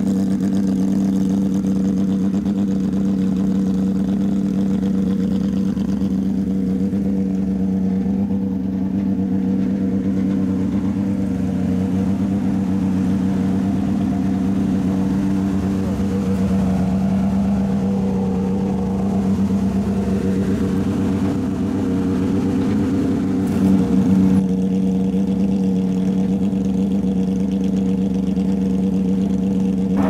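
Porsche 997 GT3 rally car's flat-six engine idling steadily, with a brief louder moment late on.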